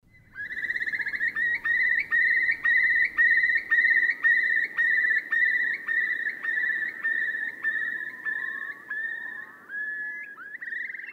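Eurasian curlew giving its bubbling song: a long, loud, quavering trill that pulses a little over twice a second. Near the end it sags in pitch and breaks into rising whistles.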